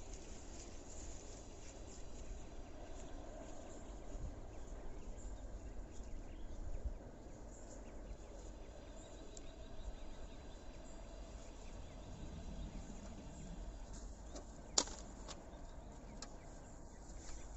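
Faint outdoor ambience: a steady low rumble with faint scattered higher sounds, and a single sharp click about fifteen seconds in.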